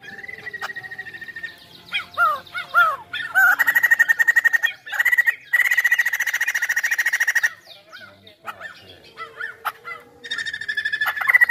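White-crested laughingthrush singing in full voice: a held whistle, a few rising-and-falling notes, then a long loud rapid trill lasting about four seconds, softer varied notes, and another fast trill near the end.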